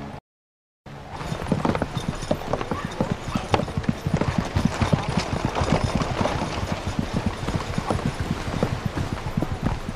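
Horses' hooves clip-clopping on a dirt street, many overlapping steps, starting about a second in after a short silence.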